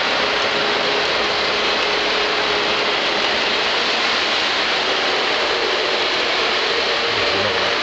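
Lionel O gauge three-rail model trains running: a steady whirring rattle of motors and wheels on the track, with a faint steady hum underneath.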